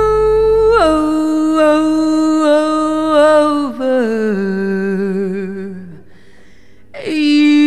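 Closing cadenza of a jazz ballad recording: the accompaniment drops out about a second in and a single unaccompanied melodic line with vibrato steps down through several long held notes before fading out. A strong new held note comes in about a second before the end.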